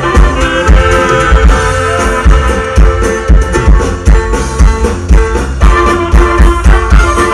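Dance music with brass and drums over a steady bass beat, about two beats a second.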